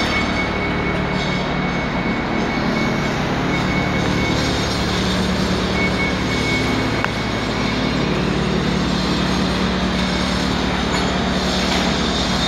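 Precast concrete plant machinery running steadily: a constant din with a low hum underneath and a thin high whine that comes and goes.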